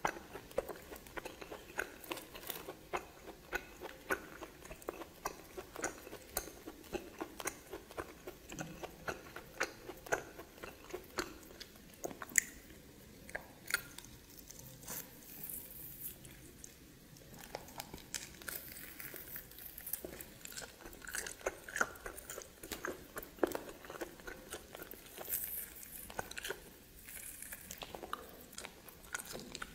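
A person chewing and biting into steamed snake, with many short crunches and clicks. The sounds thin out for a few seconds in the middle.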